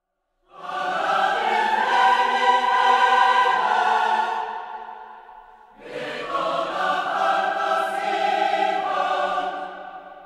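Background music: two long, held choral chords. The first comes in about half a second in and fades away; the second enters just before halfway and fades near the end.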